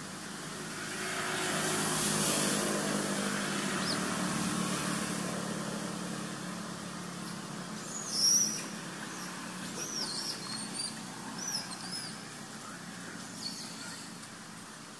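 A motor vehicle passes, its engine hum swelling over the first few seconds and then fading. After that comes a string of short, high chirping calls, the loudest about eight seconds in.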